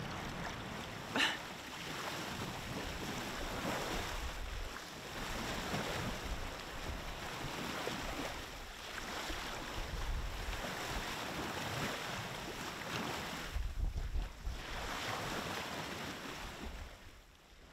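Wind buffeting the microphone in gusts over the wash of water around a boat under way, with one brief sharp sound about a second in; it all fades out near the end.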